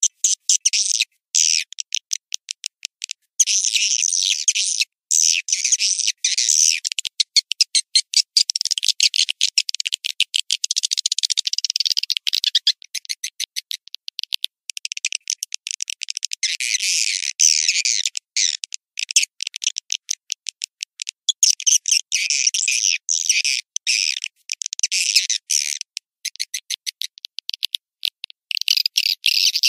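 Recorded swiftlet call (edible-nest swiftlet): rapid high-pitched clicks and twittering chirps in dense bursts broken by short silent gaps, with nothing in the low range. It is a lure call played to draw swiftlets into a swiftlet house.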